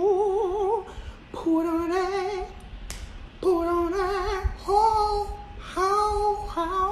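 A high singing voice holding about five long notes, each with a heavy wavering vibrato, with short breaks between them.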